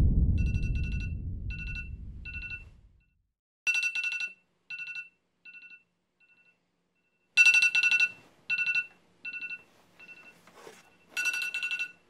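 Mobile phone alarm going off: a high electronic beeping in quick clusters, some louder than others, that stops near the end when the phone is picked up. A deep rumble dies away over the first few seconds.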